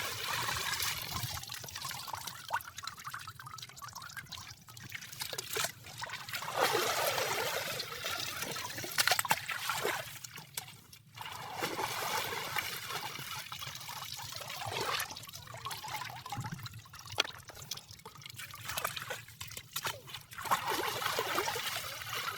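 Shallow water trickling and sloshing in irregular bursts, with a few small splashes.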